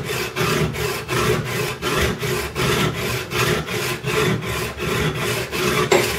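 Steel chisel edge rubbed back and forth on the 400-grit face of a perforated diamond sharpening plate. It makes a gritty scraping in quick, even strokes, with one sharper click near the end.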